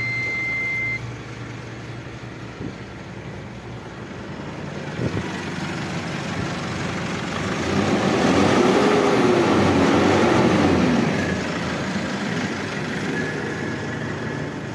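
Ashok Leyland Partner Super 914 truck's diesel engine running at idle just after start-up. A high, steady warning beep stops about a second in, and the engine sound grows louder for a few seconds in the middle, with a tone rising and falling twice.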